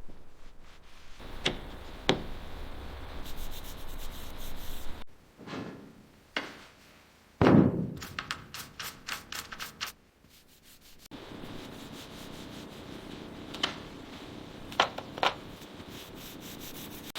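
Sanding and rubbing on a car during restoration work, heard in short cut-together segments with runs of quick strokes and several sharp knocks, the loudest about halfway through.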